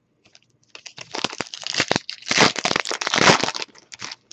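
Foil wrapper of a Topps Holiday baseball card pack crinkling as it is opened by hand. The crackle starts about a second in, is loudest in the middle and dies away near the end.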